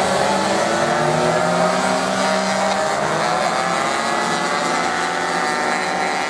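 Several motocross bikes racing together, their engines running hard at once, with the pitches of the different engines shifting against each other.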